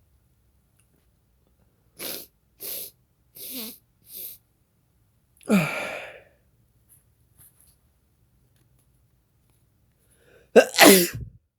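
A person sneezing, set off by Chhinkni sneezing powder: four short, sharp breaths in quick succession about two seconds in, a loud sneeze about five and a half seconds in, and a louder two-part sneeze near the end.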